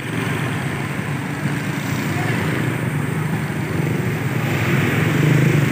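Motorbike and car traffic on a busy street: a steady low engine hum that grows louder near the end.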